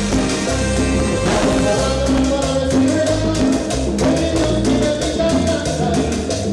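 Cumbia band playing live, with a repeating bass line, a held melody and percussion keeping a steady, quick beat.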